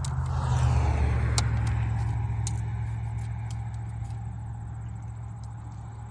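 A low rumble that swells about a second in and then slowly fades, with a few faint clicks over it.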